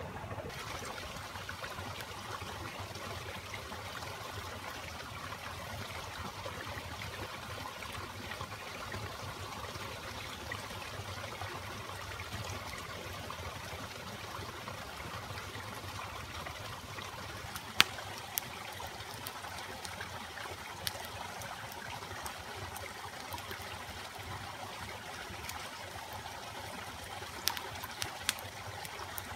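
A stream running steadily, with a few sharp pops from the wood campfire in the second half.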